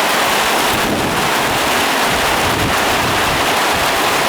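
Heavy rain pouring down in a storm, a dense steady hiss, with gusts of wind buffeting the microphone as low rumbles through the middle.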